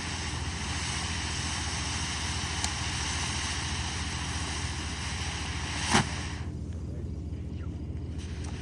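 A firework cake burning with a steady hiss and one sharp bang about six seconds in, after which the hiss drops away.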